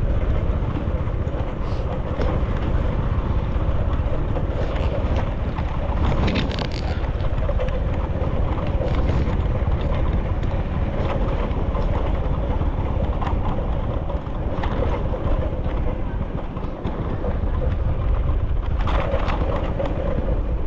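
A car driving along a road: steady engine and road rumble with wind buffeting the microphone, gusting louder about six seconds in and near the end.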